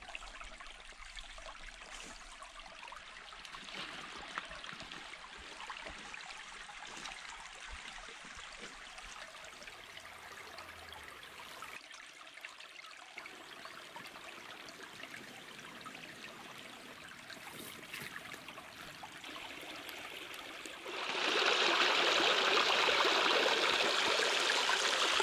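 A small forest stream running over rocks, a steady rush of water. Near the end it becomes much louder: water pouring close by down a rock cascade.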